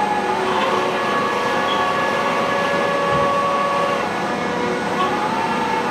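Schiess PBC130 CNC table-type boring and milling machine running while its rotary table turns: a steady mechanical whine made of several tones. One tone drops out about four seconds in, and another rises just before five seconds.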